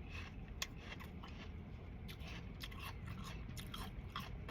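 Close-up crunching and chewing of a crisp apple: irregular crisp bites and crunches, several a second.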